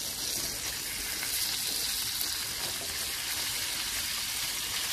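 Snow peas sizzling in a skillet of hot melted butter and sugar glaze: a steady frying hiss.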